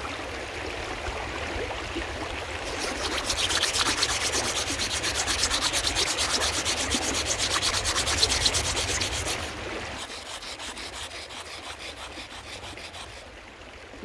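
A rock rubbed hard and fast against a sandstone boulder, a quick run of gritty scraping strokes that is loudest from about three seconds in to about nine and a half, softer before and after. The rock is being streaked to test what colour of pigment it gives, here yellow.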